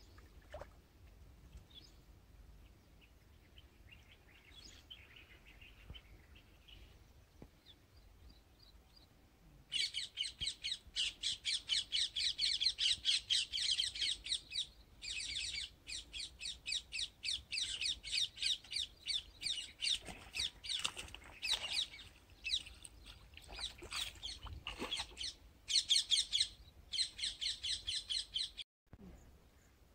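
A bird calling in long runs of rapid, repeated high chirps, several a second, starting abruptly about ten seconds in and cutting off shortly before the end.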